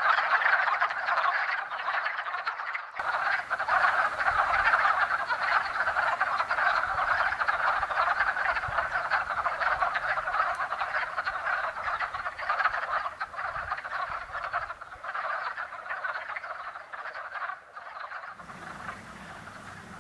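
Breeding chorus of male wood frogs (Rana sylvatica): many overlapping calls at once, thinning out and fading over the last couple of seconds.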